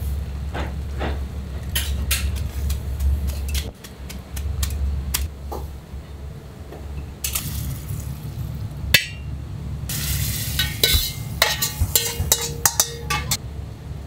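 Ramen-kitchen cooking sounds: metal utensils clinking and knocking against pots and bowls over a steady low hum. There are scattered sharp knocks, with a dense run of clatter from about ten to thirteen seconds in.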